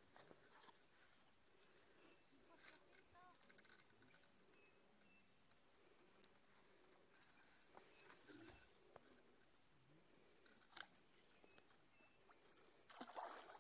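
Near silence with faint insect chirps: a short high chirp repeated evenly about once a second.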